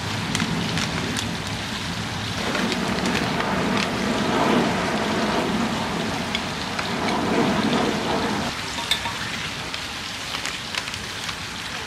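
Worm castings poured from a plastic bag and sprinkled over potted plants, giving a pattering like rain. It builds about two seconds in and falls away near the end, with a few light crinkles and clicks of the bag.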